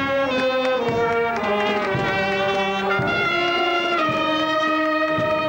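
Brass band playing a tune, with brass instruments including a large bass horn, each note held about half a second to a second as the melody steps from note to note.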